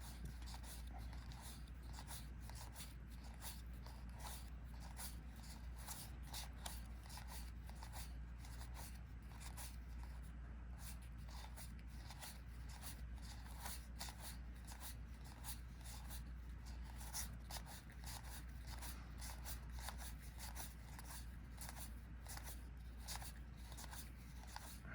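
Collectible trading cards being handled and flipped through one after another: a steady run of soft paper snaps and slides, several a second, over a low steady hum.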